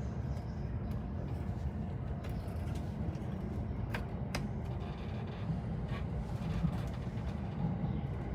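Steady low rumble of a commuter train running on the rails, heard from inside the carriage, with a couple of short clicks about halfway through.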